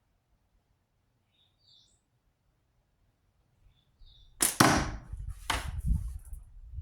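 A heavy-banded slingshot firing a steel ball at a hanging can: two sharp cracks about a second apart near the end, the first the louder, followed by a low rumble.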